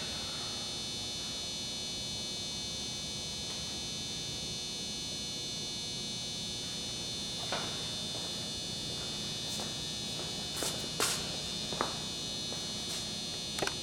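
A steady high-pitched buzzing hum, with a few light clicks and knocks in the second half.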